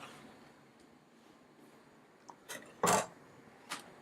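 A few light knocks of kitchen things being handled and set down on a chopping board: four short, separate knocks in the second half, the third the loudest.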